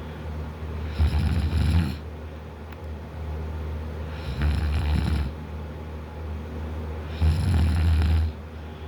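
A man snoring loudly in deep sleep, mouth wide open: three loud snores, each about a second long and about three seconds apart, with quieter breathing between them.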